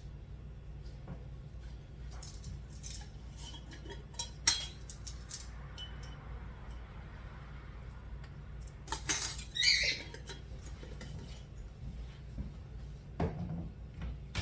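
Metal measuring spoons and kitchenware clinking and tapping while a teaspoon of salt is measured out, with one sharper clink about four and a half seconds in. A brief high squeak comes near ten seconds, over a steady low hum.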